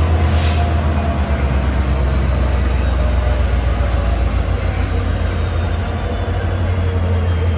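WDP4D diesel-electric locomotive running with its deep, steady engine hum. A faint high whine above it falls slowly in pitch.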